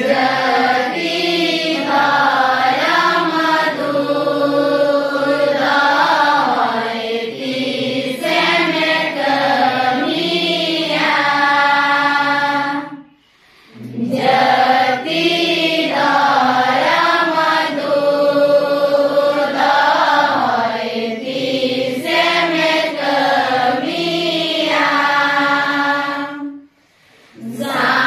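A group of young women singing a Santali lagne song together in unison, in two long phrases with a short pause for breath about halfway through.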